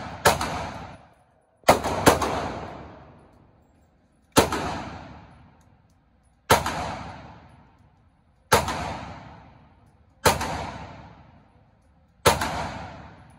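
Gunshots echoing in an indoor shooting range: single shots about every two seconds, two in quick succession near the start, each followed by a long, fading reverberant tail.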